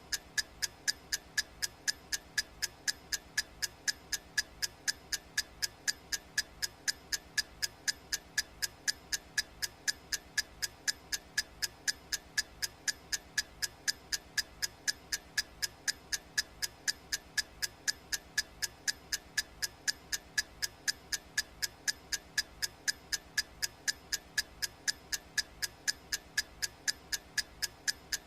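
Clock ticking sound effect: sharp, evenly spaced ticks, several a second, in a steady unbroken rhythm.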